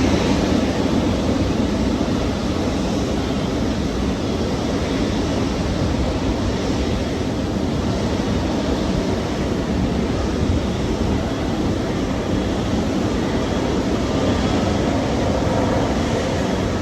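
Airbus A330-300 twin-engine jet airliner on its takeoff run, engine noise and rush at a steady level.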